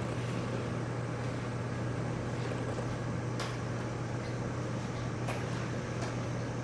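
Steady low mechanical hum over an even hiss, with two faint clicks about three and a half and five seconds in.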